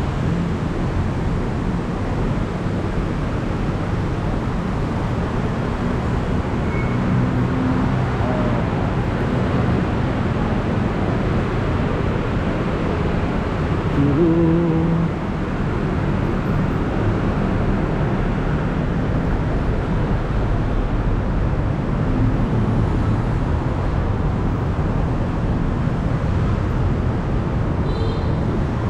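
Steady city street traffic noise, with a brief louder pitched sound about halfway through.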